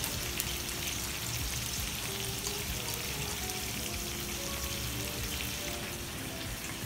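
Soft background music over a steady rain-like hiss.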